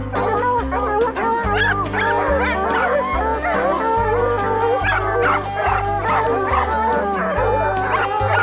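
A pack of hounds baying and barking together over background music that has a steady bass line.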